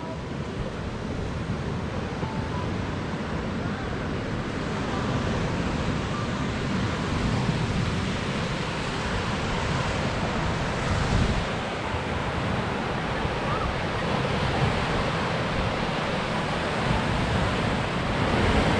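Lake Michigan surf washing onto the beach: a steady rush of waves with a few louder surges, and wind buffeting the microphone.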